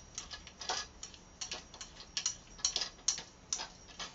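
Podium rod being twisted by hand onto the mount screw in its metal base. The turning gives a run of irregular, sharp, light clicks and ticks, a few a second.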